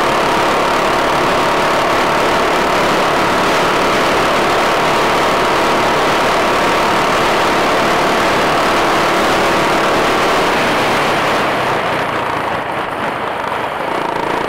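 Honda CBX 250 Twister's single-cylinder four-stroke engine running at a steady cruise, heard from the rider's camera with loud wind rush over the microphone. The sound grows quieter and less hissy over the last few seconds.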